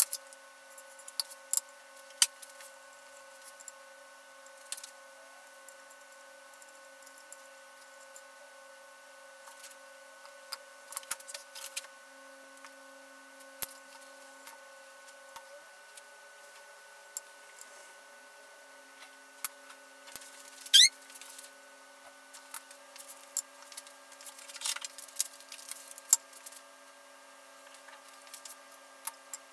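Scattered light clicks, taps and rattles of small tools and guitar parts being handled on a workbench, over a faint steady hum. One short rising squeak, the loudest sound, comes about two-thirds of the way in.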